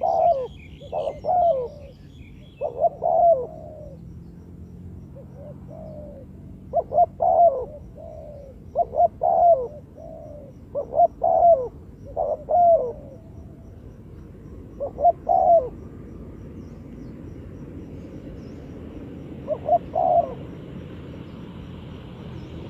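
Spotted dove cooing: short phrases of two or three low coos, repeated about a dozen times with gaps between them, the last one about twenty seconds in. Faint high twittering of another bird near the start.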